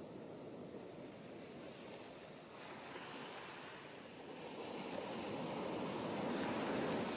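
Sea surf washing against the base of a limestone sea arch and cliffs: a steady rushing wash that swells louder in the second half, with some wind.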